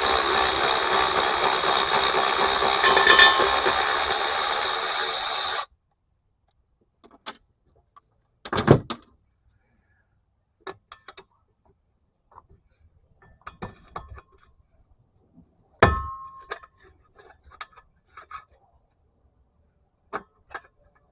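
A loud, steady rushing noise for about five and a half seconds that cuts off suddenly, then scattered light metallic clinks and two sharper clanks of tools on metal while a truck's front drive shaft is being removed.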